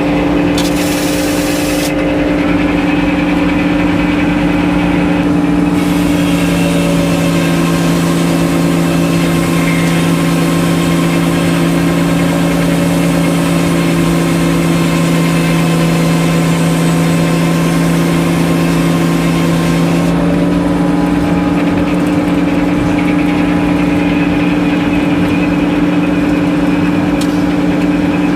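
A sawmill's engine running at a steady speed. From about six to twenty seconds in, a stretch of hissing noise rides over it.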